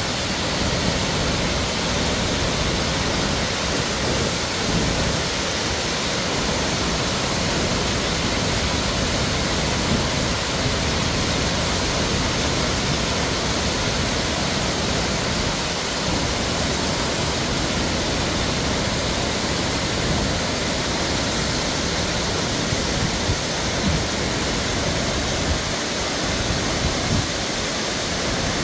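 Water pouring over a concrete dam spillway and tumbling down stepped concrete falls: a steady, even rush.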